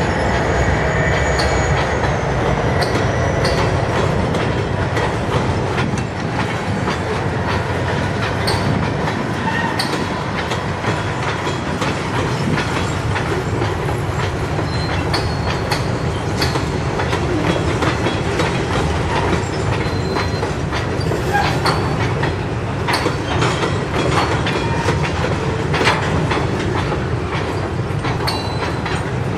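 Freight train of covered hopper cars rolling past, steel wheels clacking over rail joints with a steady rumble. A few brief high-pitched wheel squeals come and go.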